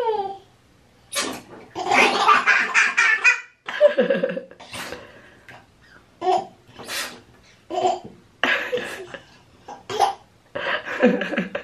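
A baby laughing in bursts: one long peal of laughter about two seconds in, then a string of shorter giggles.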